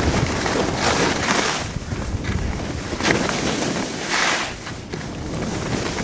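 Wind rushing over the microphone of a camera carried on a ski run, with skis hissing and scraping over packed snow, swelling in surges three or four times as the skier turns.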